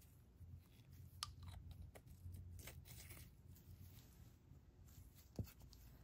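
Faint close-up handling sounds: a few light clicks and taps with some soft scratching, the sharpest click about five and a half seconds in, over a low steady room hum.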